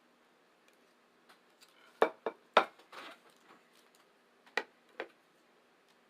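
Sharp clicks and taps of eating and handling tableware: three quick ones about two seconds in, a short rustle, then two more near the end.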